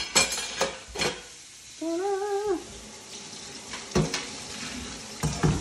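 Dishes and metal clattering in a stainless kitchen sink, a short hummed note about two seconds in, then tap water running into a metal colander with a couple of knocks as it is set in place.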